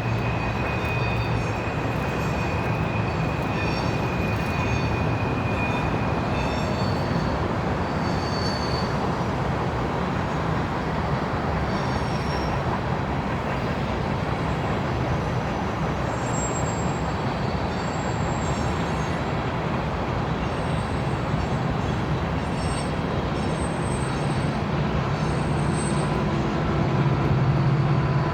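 Grain freight train rolling past: a steady rumble and clatter of wheels on rail, with high-pitched wheel squeal, held for the first few seconds and then in short scattered squeals. Near the end a low engine drone builds up.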